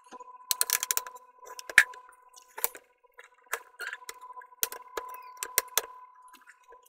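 Irregular sharp plastic clicks and snaps as the bottom case of a Lenovo IdeaPad 330-14IKB laptop is pried open and its clips let go, over a faint steady tone.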